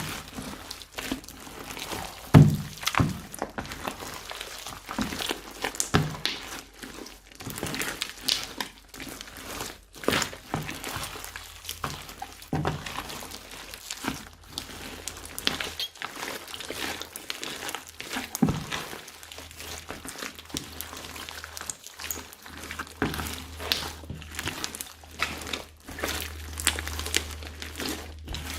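Slime being squished and kneaded by hand, giving irregular sticky clicks and pops, with one louder thump about two seconds in.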